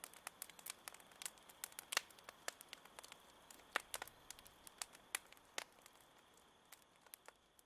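Faint irregular crackling, sharp clicks a few times a second over a faint steady high-pitched hum; the crackling thins out after about six seconds and stops near the end.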